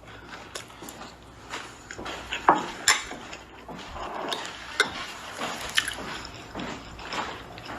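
Eating sounds: a utensil clicking and clinking against a dish several times, with small wet mouth and liquid noises between the clicks.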